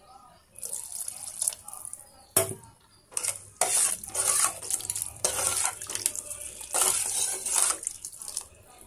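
Water being poured into a metal pot of sambar and stirred with a metal ladle: splashing and sloshing, with a sharp clink of the ladle against the pot about two and a half seconds in.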